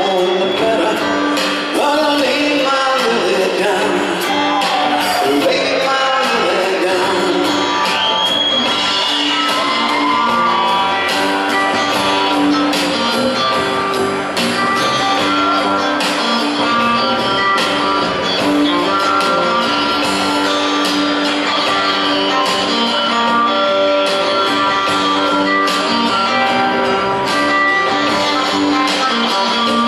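A live band of electric guitar, upright double bass and drum kit playing a song, with a voice over the first few seconds.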